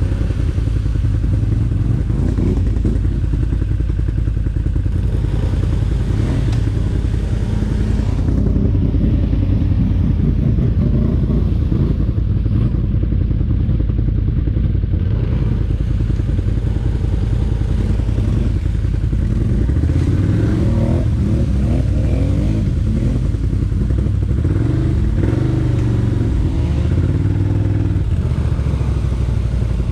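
ATV engine running under way, its revs rising and falling, most noticeably in the last third, with rattling over the engine.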